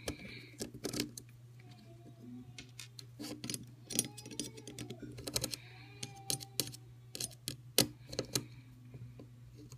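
Scattered small clicks and ticks of a Phillips screwdriver turning small screws out of the metal plate inside an Apple iPod dock, over a faint steady hum.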